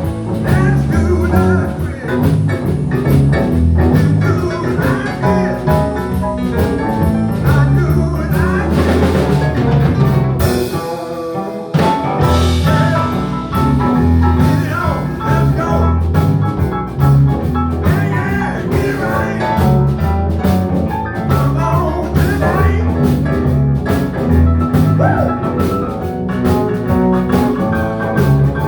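A blues band playing with guitar and drum kit, in a steady beat, with a short break in the bass and drums about eleven seconds in.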